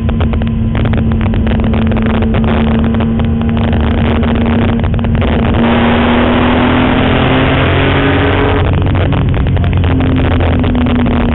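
BMW M3 race car's engine on track, heard from inside the cabin, pulling hard with its pitch slowly climbing. A dense rush of noise builds over it for a few seconds in the middle. The pitch dips about nine seconds in, then climbs again.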